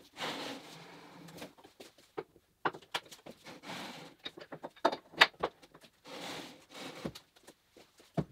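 Handling noise from a CNC router lying on its side being moved around on a lifting table: scattered light knocks and clicks, the sharpest about five seconds in, with a few short stretches of soft noise.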